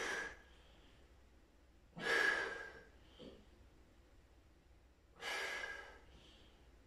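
A man breathing out hard twice, about three seconds apart, from exertion while holding a forearm plank.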